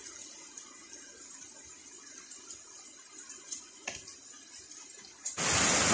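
Heavy rain falling, a steady hiss with a sharp click about four seconds in. About five seconds in the rain suddenly becomes much louder.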